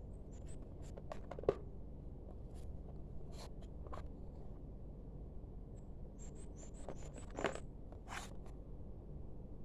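Packaging being handled during an unboxing: scattered light clicks, scrapes and crinkles, with a louder knock about a second and a half in and another near the end, over a steady low hum. A run of short, faint, high chirps comes about six to seven and a half seconds in.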